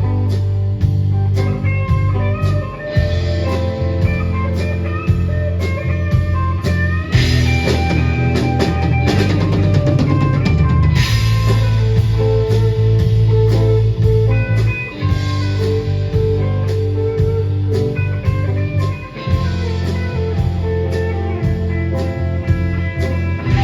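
Instrumental rock music with a drum kit keeping a steady beat under guitar and bass.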